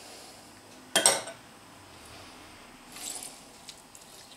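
One sharp clink against a ceramic mixing bowl about a second in, ringing briefly, then a softer wet squish near three seconds as a hand squeezes a lemon half over the bowl.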